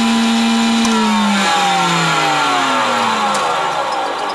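Jointer's three-knife cutterhead running up to speed with a steady whine; about a second in it is switched off and the whine falls steadily in pitch as the cutterhead coasts down.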